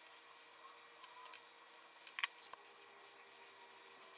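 Quiet small handling sounds on a tabletop, with a short cluster of sharp clicks just over two seconds in and one more click right after, as a disposable lighter is struck and lit.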